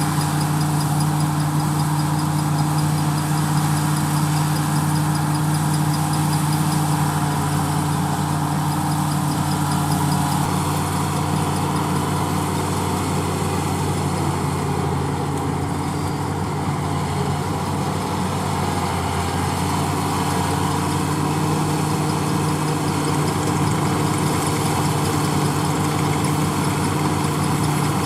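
Diesel engine of heavy farm machinery running steadily at an even speed, with a constant low hum that does not rise or fall.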